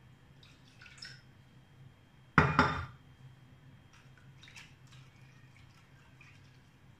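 Kitchenware handled on a counter: a loud double knock about two and a half seconds in, with faint clinks and scrapes of a wire whisk in a small glass bowl as dissolved yeast is scraped into a bowl of flour.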